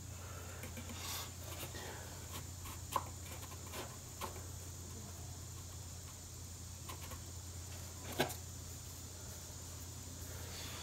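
A few faint wooden clicks and knocks as a neck block is handled and set in place inside a resonator guitar body, the sharpest about eight seconds in, over a steady low hum.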